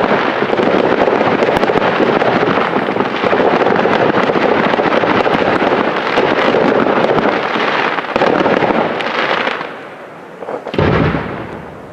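Fireworks display: a dense, continuous barrage of shell bursts and rapid crackling pops that dies away after about nine seconds, followed by one last loud bang near the end.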